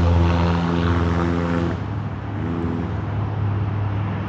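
Steady low engine drone with even overtones, which drops in level a little under two seconds in. A fainter engine sound that wavers slightly in pitch follows.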